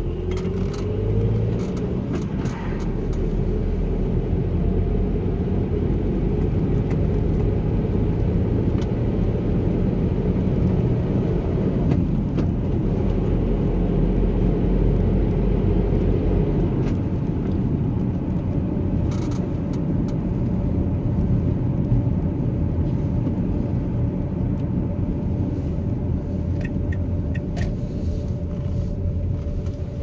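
A car driving at road speed: steady engine and tyre noise.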